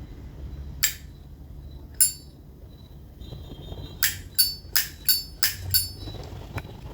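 Vintage 1975 Zippo lighter's hinged metal lid being snapped open and shut: sharp metallic clacks with a short ring, two single ones about a second apart, then six in quick succession from about four seconds in.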